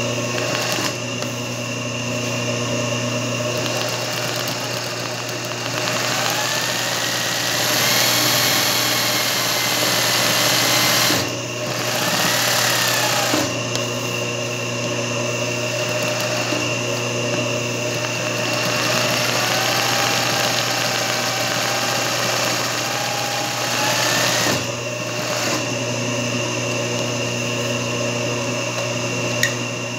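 Singer 20U industrial zigzag sewing machine stitching free-motion embroidery over a steady motor hum, its pitch rising and falling as the speed changes, with two brief stops.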